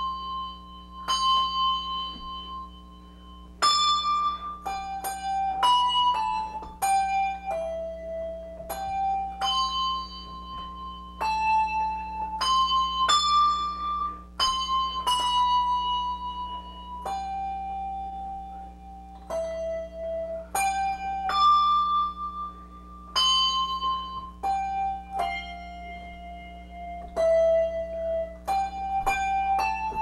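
Solo ringing of English handbells: a slow melody of single brass bell notes, each struck sharply and left to ring and fade, a new note every half-second to two seconds.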